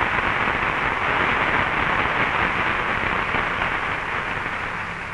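Audience applauding, a steady clatter of many hands that dies away toward the end.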